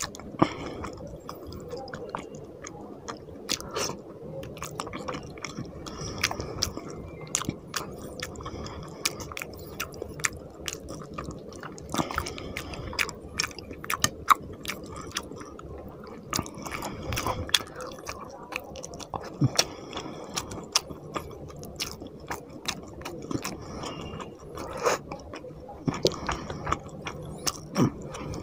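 A person chewing a mouthful of fish curry and rice, with frequent irregular sharp clicks from the mouth.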